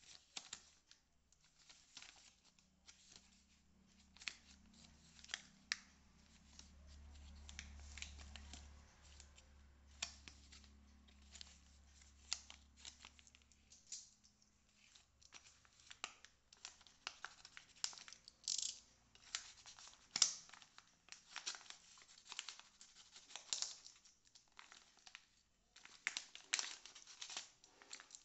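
A plastic shipping pouch and its paper wrapping being handled and opened: many short crinkling rustles and tearing sounds, coming faster in the second half.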